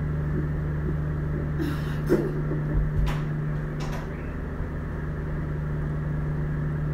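A steady low hum, with a few faint clicks and knocks between about two and four seconds in.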